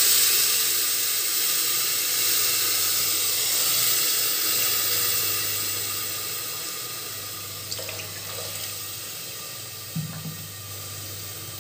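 Water poured from a steel bowl into a hot pressure cooker of freshly fried rice, cumin and whole spices, splashing and sizzling as it hits the hot pan. The hiss is loudest at first and dies away over several seconds, with a couple of light knocks near the end.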